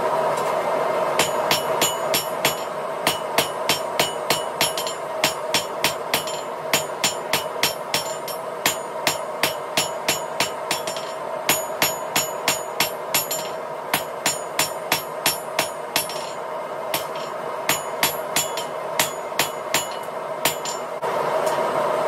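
Blacksmith's hand hammer striking a red-hot steel rod on an anvil, about two to three blows a second with a couple of short pauses, starting about a second in. Each blow rings with a bright metallic tone, over a steady background hum.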